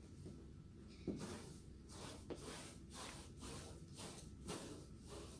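Faint, rhythmic scuffs of sneakers sliding on a dance-studio floor during a moonwalk, about two slides a second, over a low room hum.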